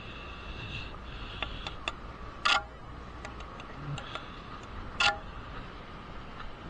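Two sharp, ringing clinks about two and a half seconds apart, with several lighter ticks between them: hard objects knocking together.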